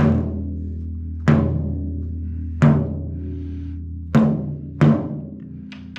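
Single tuning taps on the new Remo Powerstroke 4 batter head of a DW Design Series 16-inch tom, one near each tension rod in turn, with the resonant side muted. There are five clear taps about a second apart and a lighter one near the end, each a short low tom note that dies away. The head is still slightly under its target pitch.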